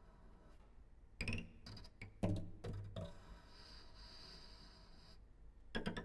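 Solo cello played with unconventional, noise-based techniques: a cluster of short sharp attacks about a second in, then a soft airy bowing noise, and another sharp attack near the end.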